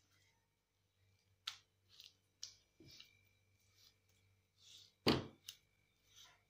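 Stone roller and hands working a flat grinding stone as green leaves are ground into a wet paste: faint scattered scrapes and clicks, with one louder knock about five seconds in.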